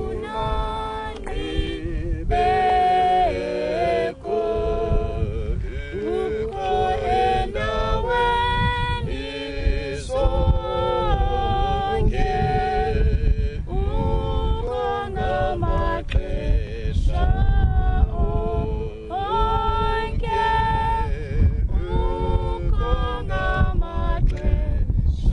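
Closing music: a group of voices singing, led by female voices, with wavering held notes over a low accompaniment; it fades out at the end.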